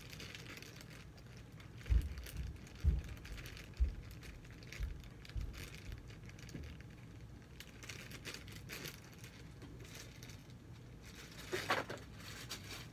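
Clear plastic zip-top bag crinkling and rustling as it is handled and its zipper pulled open, with a few soft thumps in the first half and a louder rustle near the end.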